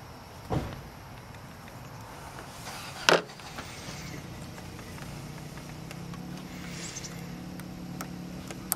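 Hands working small quick-splice wire connectors onto a scooter's brake-light wiring: a handling thump about half a second in, a loud sharp snap about three seconds in, and a few small clicks near the end. Under it runs a low steady hum from about four seconds in.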